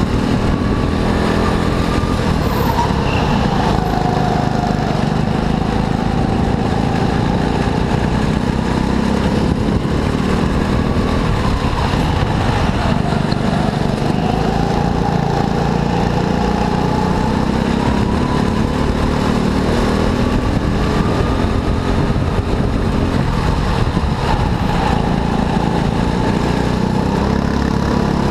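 Racing kart engine running hard, its pitch falling and rising several times as the kart slows and accelerates, over a steady low rumble.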